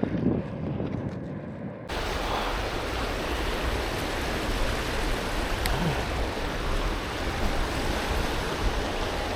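Steady rushing noise of fast-moving river water, cutting in abruptly about two seconds in after a quieter stretch.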